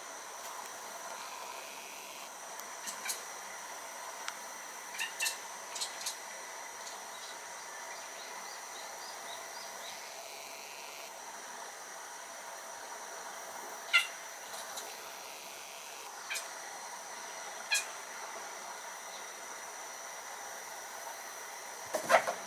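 A kitten chirping in short, bird-like calls at a small bird outside, imitating its call. Single chirps or small clusters come every few seconds, with the loudest and lowest near the end.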